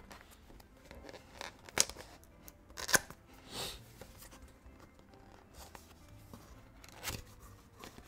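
A small cardboard product box being handled and opened by hand: a few sharp snaps and short paper scrapes as its seal is broken and the lid flap is lifted, the loudest snap about three seconds in.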